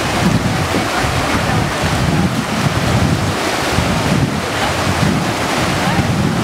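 Whitewater river rapids rushing steadily and loudly, with an uneven low rumble underneath.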